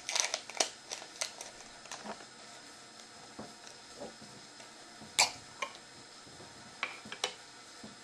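Kitchenware being handled in a small room: scattered light clicks and knocks, a quick run of them at first, one sharp knock about five seconds in and a few more near the end.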